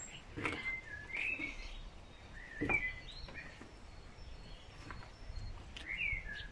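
Small songbirds chirping in short, gliding calls every second or so, with a couple of brief knocks, the louder one near the middle.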